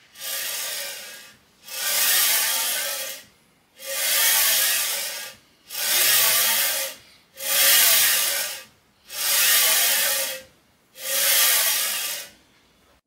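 Linear guide bearing blocks rolling along profile rails as a gantry side plate is pushed back and forth by hand: seven even strokes of a smooth rushing hiss, each about a second and a half long, the first one softer. The medium-preload blocks run smoothly.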